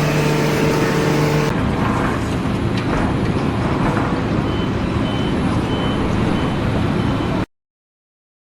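A heavy motor vehicle or machine engine running, a dense rumble with a steady pitched tone over it for the first second and a half. It cuts off suddenly about seven and a half seconds in.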